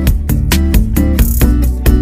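Background music with a steady beat, about four drum hits a second over a heavy bass line.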